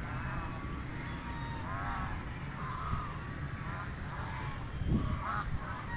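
White domestic ducks quacking: a run of short, nasal calls, several overlapping, over a steady low background rumble.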